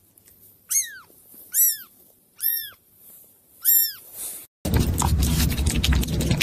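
A small kitten mewing four times, high thin mews that rise and then fall in pitch, about a second apart. After a sudden cut, a busy crackling noise full of small clicks.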